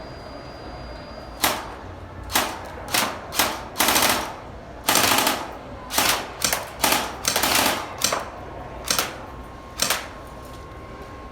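Airsoft gun firing BBs: about a dozen sharp shots and short rapid bursts, starting about a second and a half in and stopping near the end.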